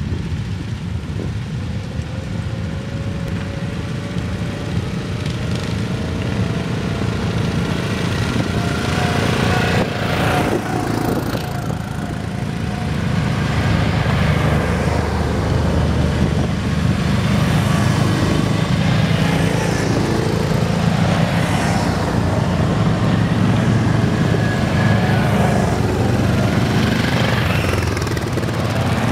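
A line of quad bikes (ATVs) riding past one after another, the engines rising and falling in pitch as each one goes by. The sound gets louder about halfway through as the quads pass close.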